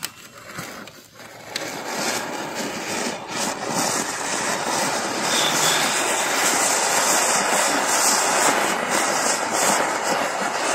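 Anar fountain firework burning in the end of a plastic pipe, its jet of sparks giving a steady loud hiss that builds up over the first few seconds, with a couple of sharp pops near the start.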